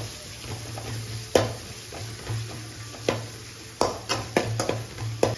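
Metal ladle stirring onions, green chillies and curry leaves in hot oil in an aluminium kadai, with sharp knocks of the ladle against the pan at irregular intervals over a steady light sizzle. The onions are being sautéed till golden.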